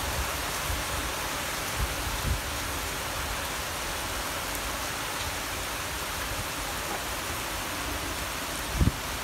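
Heavy summer rain pouring steadily. A few short low thumps of wind on the microphone, the strongest near the end.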